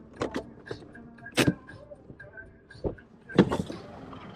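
Footsteps, knocks and thumps on a boat as people climb in and move about, coming at irregular moments, with the loudest thump near the end.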